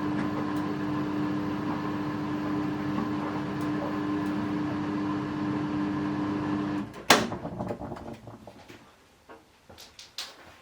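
Samsung EcoBubble washing machine running with a steady hum that cuts off about seven seconds in, near the end of its programme, followed by one sharp click and a few faint clicks.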